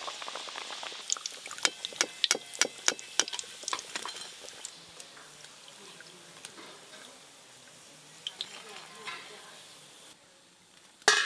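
Hot cooking oil sizzling and crackling in a metal kadai. Sharp pops come thick at first, then thin out as the sizzle dies down.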